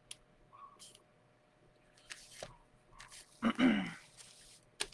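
Handheld spray bottle giving several short, hissy spritzes of a water and top coat mix. It squirts a coarse spray rather than a fine mist.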